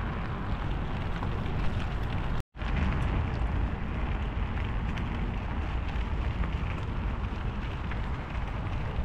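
Wind buffeting the microphone of a camera on a moving bicycle, over the hiss of tyres rolling on wet pavement. The sound cuts out for an instant about two and a half seconds in.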